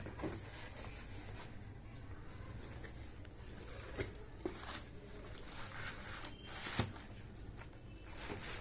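Faint rustling and rubbing of packaging being handled, with a few light clicks and taps.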